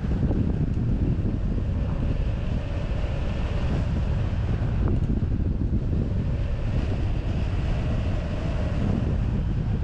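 Airflow rushing over the microphone of a wing-mounted camera on a hang glider in flight: a steady low rumble of wind.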